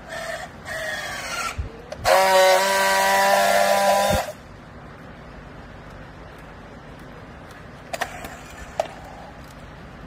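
Battery-powered handheld plastic-strapping tool working on a strap around a baled load: two short motor whirs as it tensions the strap, then a loud steady buzz for about two seconds as it friction-welds the strap ends. A couple of light clicks near the end.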